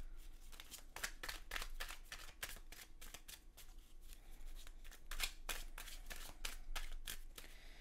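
A deck of tarot cards being shuffled in the hands: a quick, uneven run of card flicks, about five a second, easing off near the end.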